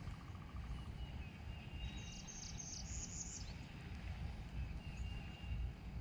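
Outdoor ambience by a pond: a steady low rumble of wind on the microphone, with a short run of rapid high chirps about two seconds in and a faint trill at the start.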